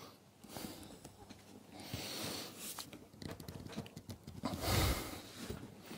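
Large lever-action cable lug crimper being worked by hand to crimp a lug onto a heavy battery cable: soft scraping and handling of the tool, then one louder, deeper rush of sound about four and a half seconds in as the lever is hauled through the crimp.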